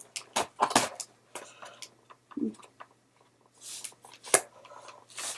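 Toy packaging being handled and pulled at: a string of sharp clicks and short plastic-and-cardboard rustles, with one louder snap a little after four seconds.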